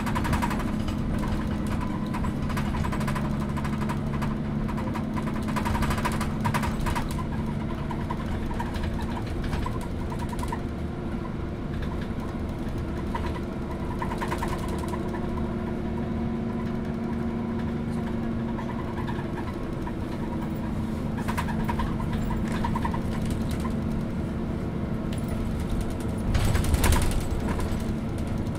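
MAN NÜ283 city bus heard from inside the passenger cabin while under way: a steady diesel engine drone with the bodywork and fittings rattling. A louder jolt and rattle comes near the end.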